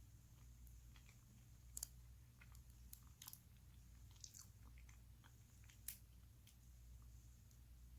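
A person chewing Spam, faint, with scattered sharp wet mouth clicks; the loudest come about two and six seconds in.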